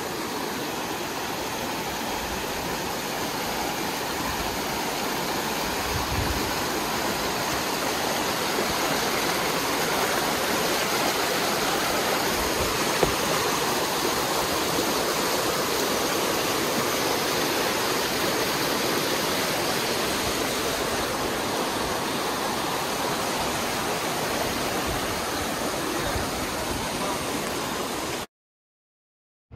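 Fast mountain creek rushing over rocks: a steady, loud rush of white water. It cuts off suddenly near the end.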